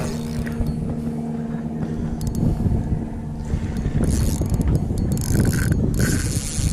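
Fishing reel squeaking and whirring as it is cranked against a hard-pulling bull redfish. The reel is strained by the fish. A steady whine in the first couple of seconds turns harsher and hissier about halfway through.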